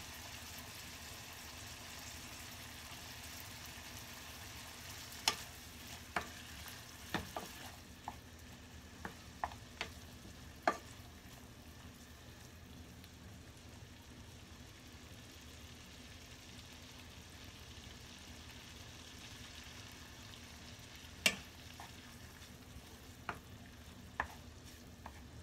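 Mushrooms and their butter sauce sizzling softly in a frying pan as a wooden spatula stirs them, with scattered sharp taps of the spatula against the pan, clustered in the first half and again near the end.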